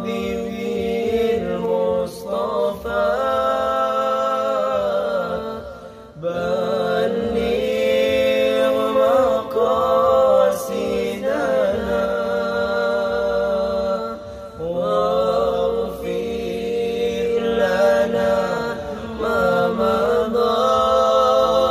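Two male voices singing an Islamic sholawat together, long held notes with melismatic ornaments that bend up and down, pausing briefly for breath about six seconds in and again near fifteen seconds.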